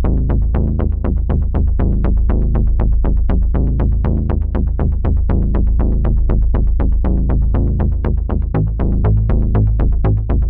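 Electronic suspense cue built on a helicopter-rotor-like chopping pulse, about five beats a second, over a low steady drone. Deep pitched notes start shifting near the end.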